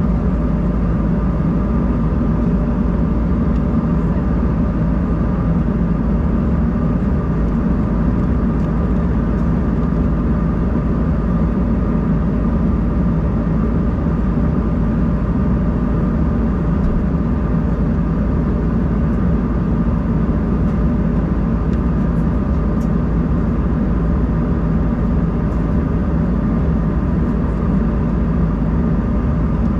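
Steady cabin noise inside an Embraer 190-E2 airliner: a constant deep rumble of engines and airflow with a faint steady hum above it.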